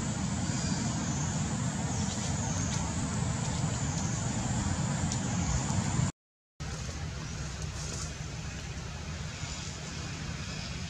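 Steady outdoor background noise: a low rumble under a thin, steady high hiss. It drops out completely for about half a second around six seconds in.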